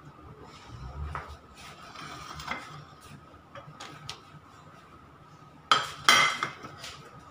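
Dishes and utensils clattering in a kitchen: faint knocks, then two sharp clinks close together near the end.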